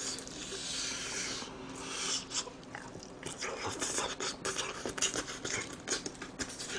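Close-miked chewing of crispy fried food: an irregular run of small crunches and wet mouth clicks.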